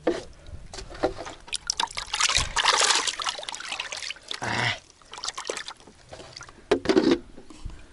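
Water splashing and trickling, mixed with irregular knocks and handling sounds, loudest about two to three seconds in and again near the end.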